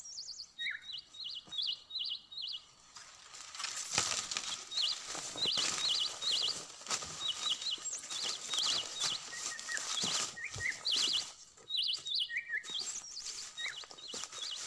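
A wild songbird chirping over and over in short, quick, high phrases. From about three seconds in, a noisy rustle with scattered knocks runs beneath it.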